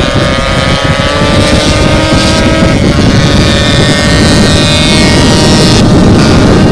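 Yamaha RX-King two-stroke single running hard at high revs through an aftermarket 'setengah dewa' exhaust while riding at speed, its pitch sagging slightly and then holding steady, with wind noise on the microphone. It cuts in suddenly at the start.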